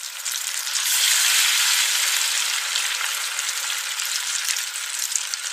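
Green beans frying in hot oil in a pan, a steady sizzle with fine crackles.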